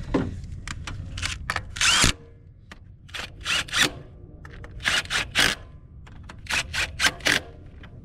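Cordless electric impact driver run in several short trigger bursts, driving the 10 mm bolts back in, kept brief so as not to snap them.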